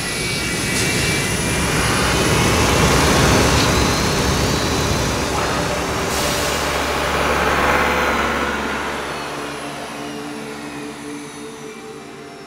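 Jet aircraft engine noise on a carrier deck, swelling twice with a falling whine, then dying away after about nine seconds as soft sustained music tones come in.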